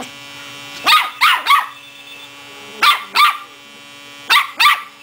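Rat terrier puppy giving high-pitched play barks: seven sharp yaps in quick groups of three, two and two. A faint steady hum runs underneath.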